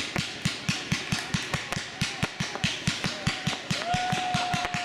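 Firework battery (cake) firing shot after shot in a fast, even rhythm, about five or six launches a second, over a steady crackle of bursting stars. A steady whistle sounds for about a second near the end.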